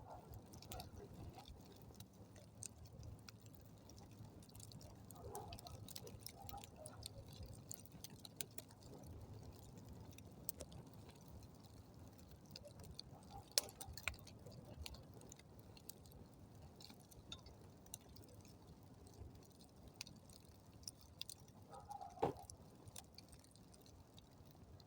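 Wood campfire crackling and popping: scattered small sharp snaps, with a couple of louder pops about halfway and near the end.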